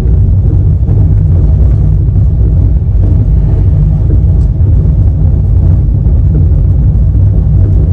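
Express passenger train running at speed: a loud, steady, low rumble of the coach on the track with light rattling.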